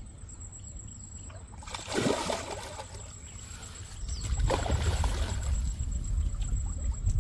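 Hooked catla carp splashing at the surface close to the bank while it is played on the line, two short splashes about two and four and a half seconds in.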